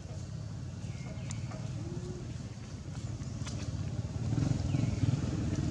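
Low rumble of a motor vehicle engine, growing louder toward the end, with a few short high calls over it.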